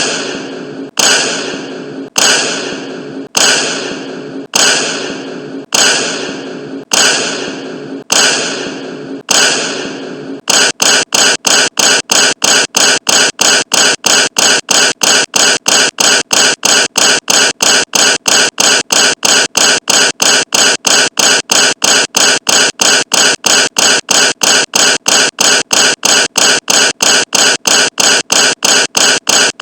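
The Vine boom sound effect played over and over: a sudden hit with a fading tail, about once a second at first. From about ten seconds in it repeats faster, around three times a second, each boom cut short by the next.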